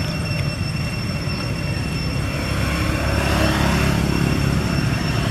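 A steady low rumble that swells briefly about three seconds in, with two faint high steady tones above it.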